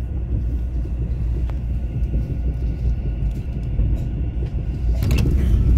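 Low, steady rumble of a Mugunghwa-ho passenger train running on the rails, heard from inside the carriage, with a few faint clicks and a brief hiss about five seconds in.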